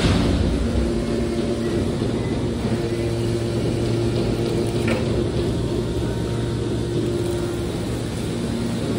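Steady machine hum from scrap car baler machinery, a constant low drone with a few steady tones over a noisy wash, and a faint click about five seconds in.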